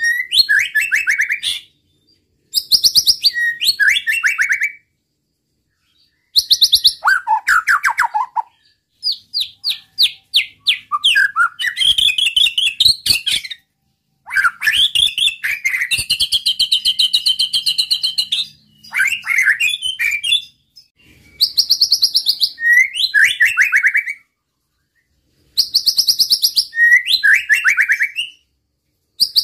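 White-rumped shama (murai batu) singing a run of loud, varied song phrases separated by brief pauses. Many phrases are rapid bursts of repeated notes, the 'nembak' style prized by fanciers, and a longer trilled phrase comes about midway.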